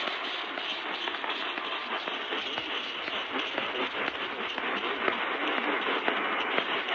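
AM radio static from a portable radio's speaker: a steady hiss with light crackle, with no clear program audio coming through.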